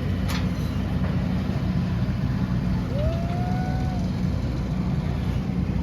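An engine running steadily with a low, even drone. About three seconds in, a short tone rises and then holds for about a second over it.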